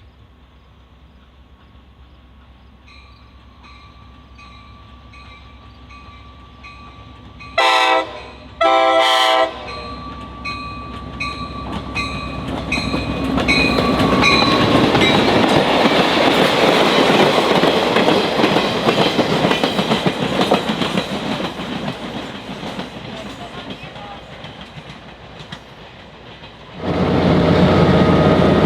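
Amtrak F40PH diesel locomotive hauling a train closer, sounding two horn blasts, a short one and then a longer one, about eight seconds in, while an even ringing beat repeats. The train then passes loudly with engine and wheel noise on the rails and fades away, and the sound jumps back up suddenly near the end.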